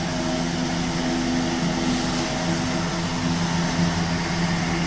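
Steady hum of a running fan: a few low, even tones over a constant rush.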